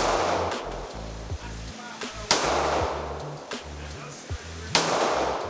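Semi-automatic handgun fired at an indoor range: three loud shots about two and a half seconds apart, each trailing off in the room's echo, with fainter sharp cracks in between.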